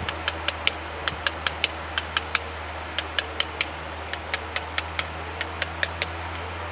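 Small hammer striking a steel hand chisel cutting into a stone relief carving: quick sharp taps about five a second, in runs broken by short pauses. A steady low hum runs underneath.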